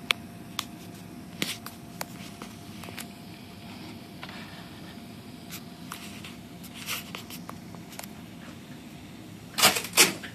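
Cola foam slowly fizzing over the top of a can of Coke Zero, with scattered sharp pops of bursting bubbles over a faint steady hum. Two louder rustling noises come near the end.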